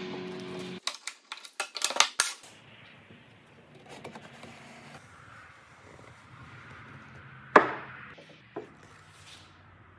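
Solid wooden joint pieces knocking and clattering as they are handled and fitted together: a quick run of sharp knocks in the first couple of seconds, then faint sliding of wood on wood, and one loud wooden knock about seven and a half seconds in, with a lighter one a second later. A steady hum cuts off just under a second in.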